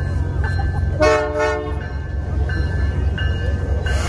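A diesel locomotive's air horn sounds one short blast of under a second, about a second in, over the steady low rumble of a train. A grade-crossing bell dings about every 0.7 seconds throughout.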